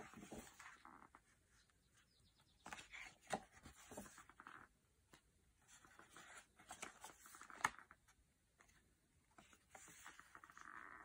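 Sketchbook pages being turned by hand: soft paper rustles and flaps in several short bursts, with one sharper snap about two-thirds of the way through.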